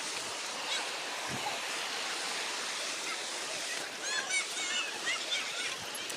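River water rushing as a steady hiss. From about four seconds in, a few short, high-pitched calls sound over it.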